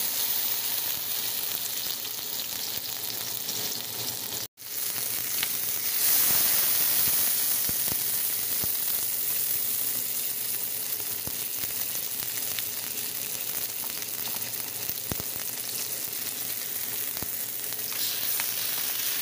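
Chicken wings sizzling steadily as they fry in hot olive oil in a pan. The sizzle cuts out completely for an instant about four and a half seconds in, then returns a little louder.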